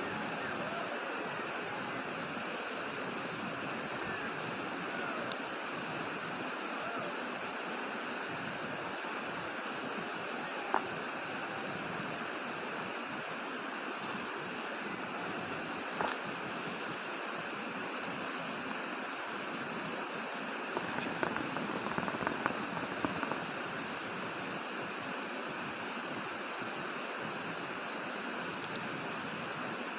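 Steady rushing outdoor noise, close to the sound of running water, with a few brief faint clicks about a third of the way in, around the middle, and in a short cluster after that. No howling is heard.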